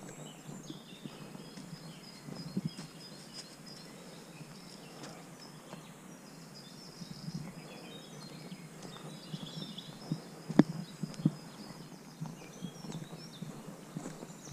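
Footsteps on a dirt woodland path, with small birds chirping in the background. Two sharper knocks come about ten and eleven seconds in.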